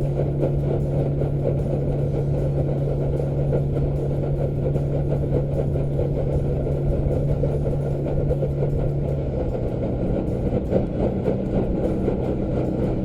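Small boat motor running steadily, its pitch shifting a little about nine seconds in.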